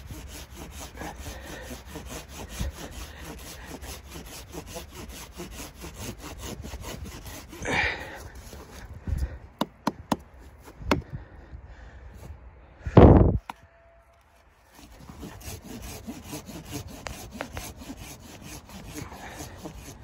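Hand saw cutting a dead log, in rapid, even back-and-forth strokes of the blade rasping through the wood. The sawing stops about eight seconds in, followed by a few sharp knocks and a loud thump about thirteen seconds in; after a short silence the rasping strokes resume.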